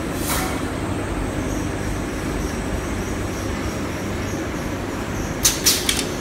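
Steady mechanical running noise of factory machinery, with a few sharp clicks near the end.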